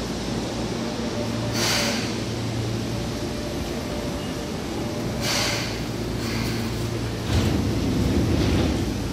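Seibu 2000 series electric commuter train: a steady low hum, with two short hisses about one and a half and five seconds in, and a louder low rumble building from about seven seconds in.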